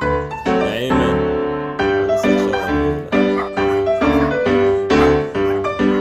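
Background music: a piano playing a melody over chords at a steady pace.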